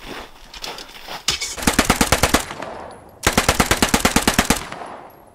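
Two bursts of automatic machine-gun fire, roughly ten to twelve shots a second. The second burst is longer, and it dies away before the end.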